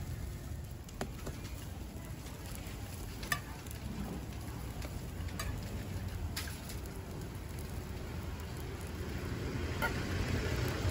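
Hotteok frying on an oiled griddle, a steady sizzle, with a handful of sharp metal clinks as steel hotteok presses and utensils are handled on it. A low steady rumble runs underneath.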